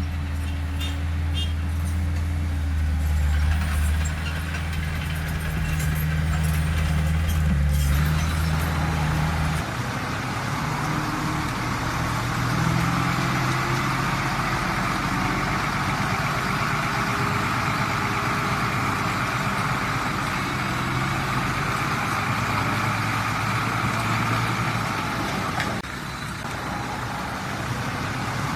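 Heavy diesel earthmoving machinery running under load. The deep engine note changes about ten seconds in, and a higher-pitched hiss or whine then builds and holds, with light clanking in the first several seconds.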